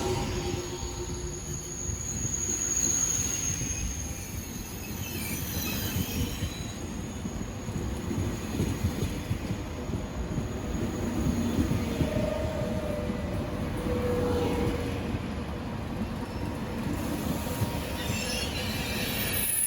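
OUIGO high-speed train pulling in and slowing, a continuous low rumble of the train rolling on the rails. Brief squeals of wheels or brakes rise above it, a high one a couple of seconds in and lower ones later on.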